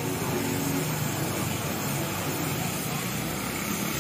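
Water jet from a hose spraying hard against a car's front wheel and underbody: a steady hiss, with a faint low hum beneath it.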